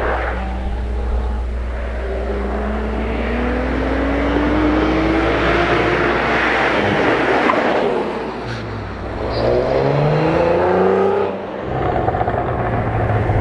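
Cadillac CT4-V Blackwing's 3.6-liter twin-turbo V6 accelerating hard, its pitch climbing in a long pull, falling back about 8 s in and climbing again, then dropping off sharply about 11 s in.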